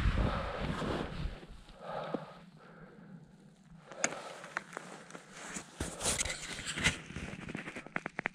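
Rushing wind and ski-on-snow noise of a skier running downhill, fading out in the first second or so as the skier slows to a stop. Then a near-quiet stretch, and from about halfway on scattered clicks, crackles and rustles of gear and clothing.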